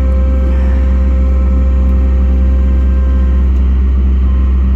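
An engine running steadily at a constant speed: a loud, deep, even hum with no change in pitch.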